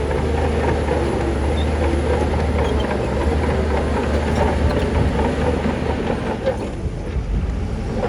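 Crawler bulldozer's diesel engine running steadily under load, with its steel tracks clanking and rattling.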